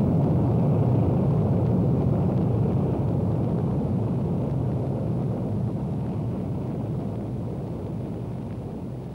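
Linear aerospike rocket engine firing: a steady low roar that slowly fades out.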